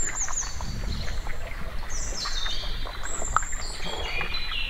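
Birds singing: runs of high whistled notes that step down in pitch, repeating about once a second.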